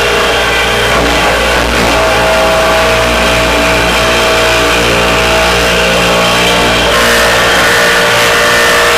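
Random orbit sander running steadily while sanding heart pine flooring, a loud continuous motor hum whose pitch shifts slightly about seven seconds in.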